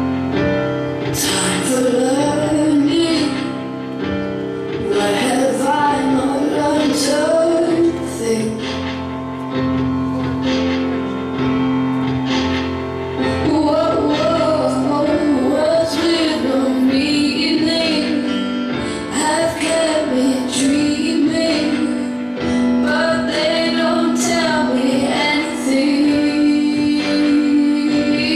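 A song with a woman singing a melody over steady, sustained chords.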